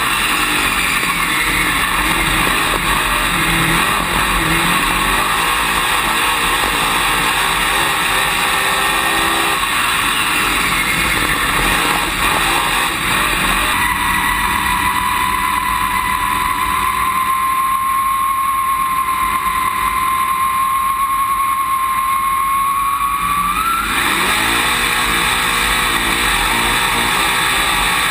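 Dirt late model race car's V8 engine heard from inside the cockpit at racing speed, its pitch rising and falling. About halfway through it settles into a steadier, slowly rising note, then climbs sharply as the car accelerates hard near the end.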